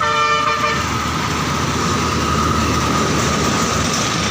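Street traffic with a vehicle horn sounding briefly at the start. A steady whine runs over the traffic noise.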